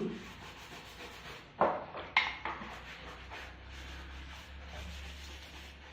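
Kitchen utensils being handled while the kitchen is cleaned: two sharp clatters about half a second apart, a second and a half in, then quieter handling over a faint low hum.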